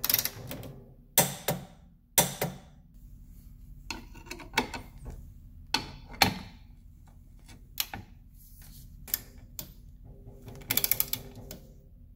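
Torque wrench ratcheting in short strokes while the rear lower control arm nuts are tightened to torque, giving sharp metal clicks and clanks about once a second. A quick run of ratchet clicks comes near the end.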